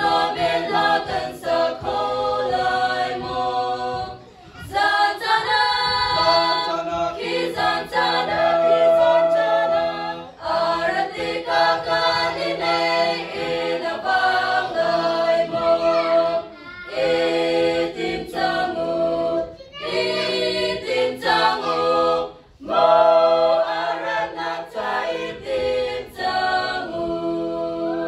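Small women's choir singing, in phrases of about six seconds with short breaks for breath between them.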